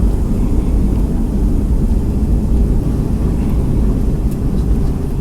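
Cabin noise inside a Boeing 757 on the ground just after landing: a steady low rumble from the engines and the rolling airliner.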